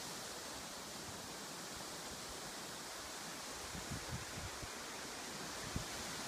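Wind in birch and pine treetops: a steady, even rustling hiss of leaves and branches. A few soft, low thumps on the microphone come about four seconds in and again near the end.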